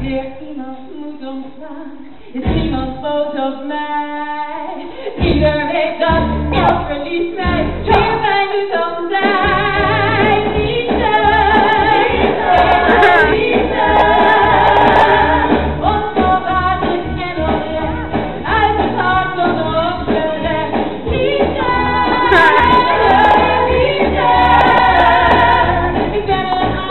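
A live musical number: singing over a band. For about the first nine seconds the band plays short stop-start hits with gaps between them, then settles into steady full playing under the singing.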